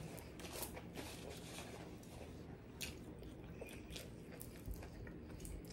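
Faint chewing of fried okra, with scattered short mouth clicks and smacks.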